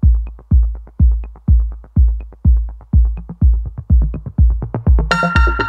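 Electronic background music with a steady kick-drum beat about two beats a second; a sustained synth chord comes in near the end.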